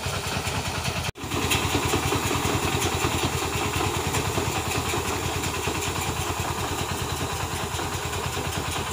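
A 10 hp mini tractor engine running steadily with a fast, even beat while it pulls an air-blast orchard sprayer, with a steady hiss over it. The sound breaks off for a moment about a second in.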